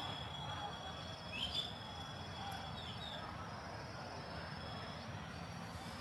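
Garden ambience: a steady high insect trill, with a few short bird chirps about a second and a half in and again around three seconds.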